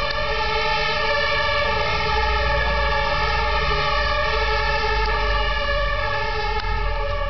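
European fire engine siren sounding loudly as the truck goes by: steady, unbroken tones over a low rumble.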